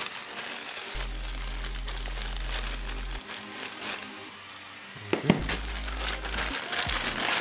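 Clear plastic bags crinkling as a power cord and laptop charger are pulled out of them, with a sharp knock about five seconds in. Background music with a steady bass line plays underneath.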